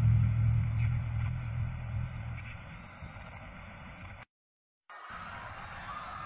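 A low rumbling drone fades over several seconds and cuts off to dead silence for about half a second, then a fainter, noisier rumble with a faint higher tone comes back in.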